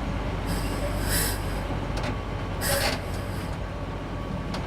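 Crane's diesel engine running steadily, with two short hissing bursts, about a second in and again near three seconds in.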